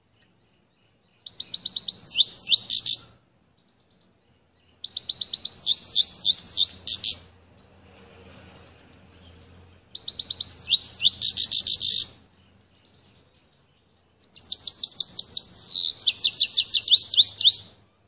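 Male canary singing in four separate phrases a few seconds apart. Each phrase opens with a fast, even trill of repeated high notes and breaks into quicker sweeping notes.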